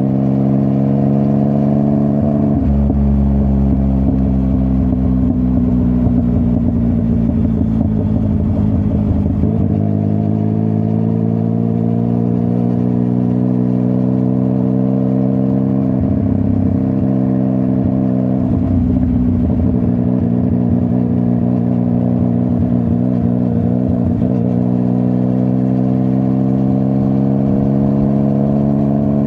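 Yamaha MT-09's CP3 three-cylinder engine through a full Akrapovic exhaust, riding on the road. Its note rises and falls with the throttle, with a few sudden drops in pitch as gears change, and climbs steadily near the end.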